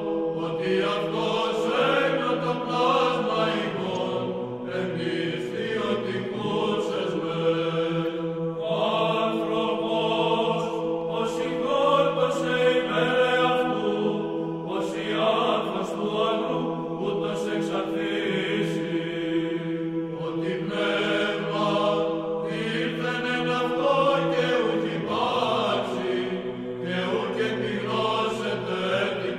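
Liturgical chant: voices singing a slow, shifting melody over a steady held drone note.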